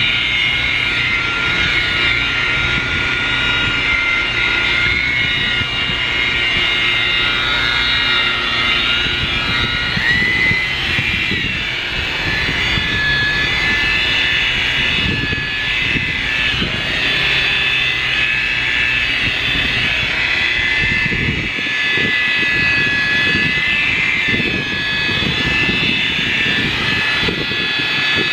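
Electric rotary polisher running with a steady high whine as its wool pad compounds oxidized gel coat on a boat hull. The whine's pitch shifts a little about ten seconds in.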